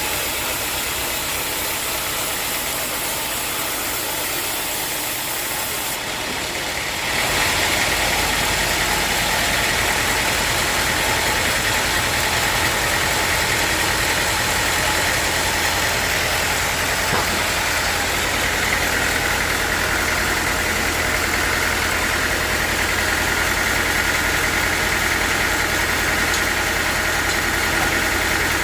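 Sawmill machinery running steadily. About seven seconds in it grows louder, adding a deep hum and a higher whine that hold steady.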